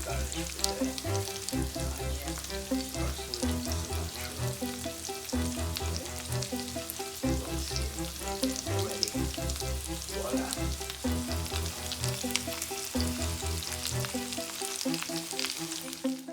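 Chicken thighs frying in olive oil in a hot pan, sizzling and crackling steadily, with background music underneath.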